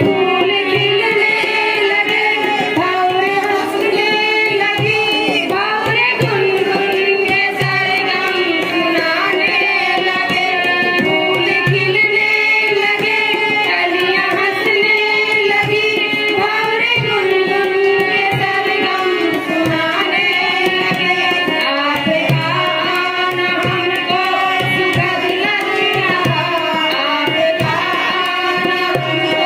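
A group of women singing a song together into microphones, with a hand drum keeping a steady beat.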